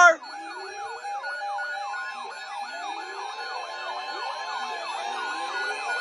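Many NOAA weather alert radios sounding their alarms together for a severe thunderstorm warning: overlapping, repeating siren-like sweeps with steady beeping tones, getting slightly louder.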